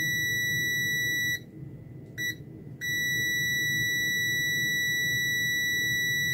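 Multimeter continuity beeper giving a steady high-pitched beep as the test probe tips are held together, showing an unbroken connection through the probes. It cuts out about a second and a half in, blips once briefly, and comes back steady about a second later: contact at the tips breaking for a moment as the hand moves.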